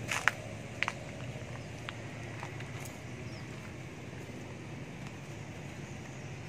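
A few sharp clicks in the first second and one more near two seconds in, over a steady low hum of background noise.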